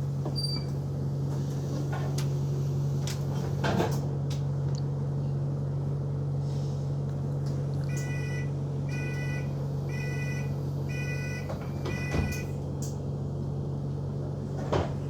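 Enviro 200 Dart single-decker bus's diesel engine idling steadily, heard from inside, with a few knocks and clunks. About eight seconds in, five warning beeps about a second apart sound, typical of the bus doors closing.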